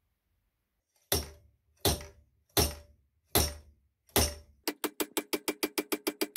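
Steel slide-hammer puller pulling a rocker-arm shaft out of a cylinder head: five hard metallic strikes of the weight against its stop, about three quarters of a second apart, each ringing briefly, then a quick run of about a dozen lighter strikes, several a second.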